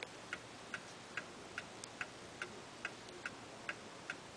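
Brass pendulum clock movement ticking evenly, about two and a half ticks a second: the clock is in beat.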